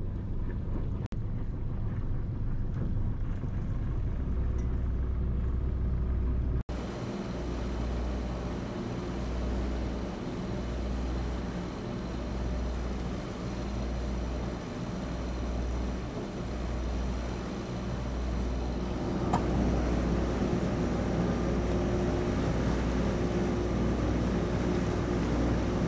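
Catamaran's engines running steadily under way, a low drone. After a cut about a quarter of the way in, the drone swells and fades in a slow, regular pulse.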